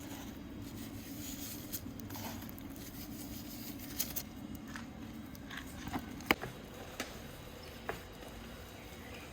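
A low steady hum with a few sparse, light clicks and taps from handling while a Provençal herb mix is added to minced beef.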